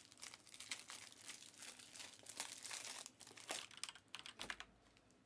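Light crinkling and rustling of card-pack wrappers being handled, a run of faint crackles that dies away about four seconds in.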